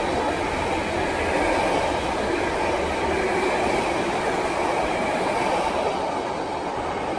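Freight train of container wagons rolling past, a steady rail and wheel noise that eases a little near the end as the last wagons go by.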